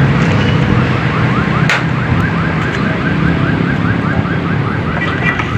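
Rumble of passing road traffic with an electronic alarm chirping rapidly, a short rising chirp about six times a second, which stops about four seconds in. One sharp knock sounds near two seconds in.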